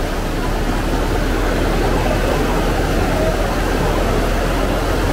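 Fast floodwater rushing and churning around a half-submerged van, a loud, steady, unbroken rush of noise.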